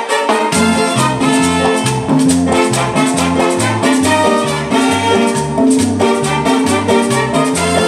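A live salsa band playing, with saxophones and trumpets over Latin percussion, piano and bass. The bass line comes in about half a second in and then keeps a steady repeating pattern.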